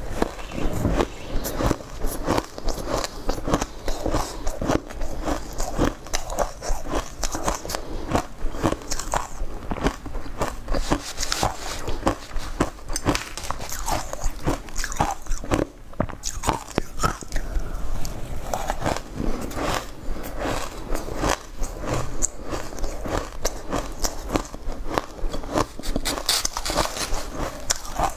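Close-miked crunching and chewing of shaved ice, with dense, irregular crackles as each mouthful is bitten and ground.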